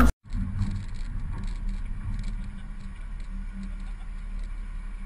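Steady low rumble of idling and passing car engines in road traffic, with faint light ticking.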